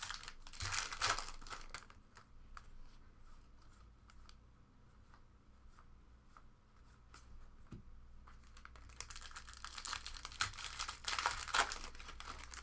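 Foil trading-card pack wrappers being torn open and crinkled, in a burst at the start and again in a longer stretch near the end, with a few faint ticks of cards being handled between.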